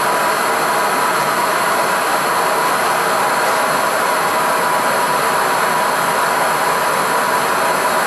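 Bernzomatic BZ8250HT air-fuel hand torch on a MAPP-gas cylinder, burning at full gas into a small furnace: a loud, steady, even rush of flame noise with no change in level.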